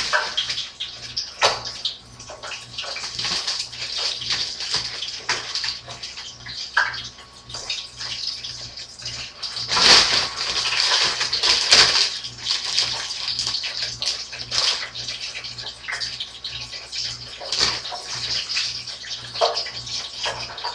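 Clear plastic bags crinkling and rustling as they are handled, in irregular crackles with the loudest bursts about ten and twelve seconds in. A faint steady low hum runs underneath.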